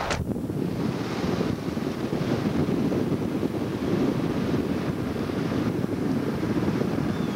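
Wind buffeting the microphone of a camcorder held outside a moving car, a steady heavy low rumble. A brief click at the very start.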